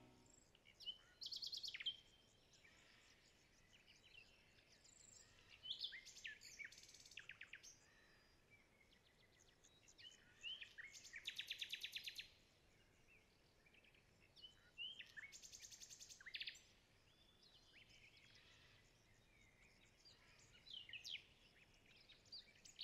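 Small songbird singing in short phrases of rapid chirps and trills, about five phrases spaced a few seconds apart, over a faint outdoor hiss.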